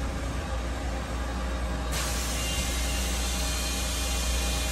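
Doosan Puma TT1800SY CNC turning center running: a steady mechanical hum with a deep drone. About two seconds in, a steady hiss suddenly joins it.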